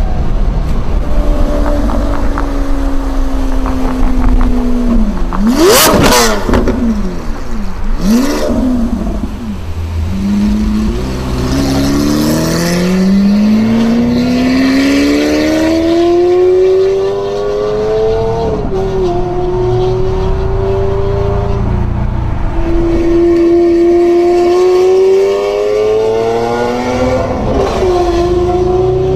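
A sports car's engine accelerating hard, its note climbing for several seconds at a time and dropping sharply twice in the second half, as at upshifts. Two sharp cracks come about six and eight seconds in.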